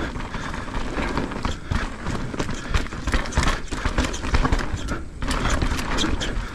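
Santa Cruz Megatower full-suspension mountain bike rolling over a rough trail: a steady rush of tyre and trail noise with a constant stream of irregular knocks and rattles from the bike, briefly easing just after five seconds.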